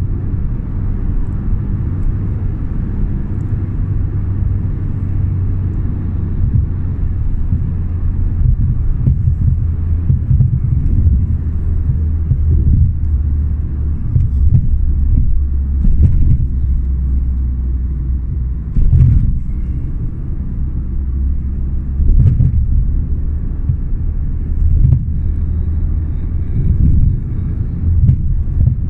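Steady low rumble of road and engine noise inside a moving car's cabin, with a few brief thumps in the second half.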